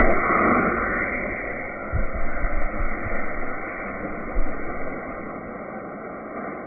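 Compressed-air launch of a model air-powered car, heard in slow-motion playback as a muffled hiss that starts suddenly and slowly fades, with a few low thumps.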